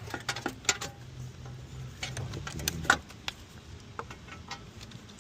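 Scattered light metallic clicks and clinks of hand tools working the 12 mm bolts of a car's battery tray. A low steady hum fades out about three seconds in.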